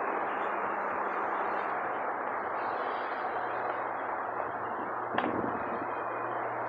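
Steady, even background noise of an outdoor car lot with a faint low hum underneath, and a single short click about five seconds in.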